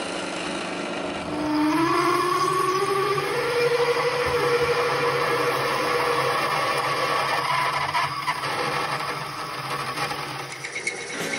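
Metal lathe running as a large twist drill bores into a spinning metal bar under flood coolant, its machine whine rising in pitch about a second in and then holding steady. Before that, briefly, a milling machine's cutter head is cutting.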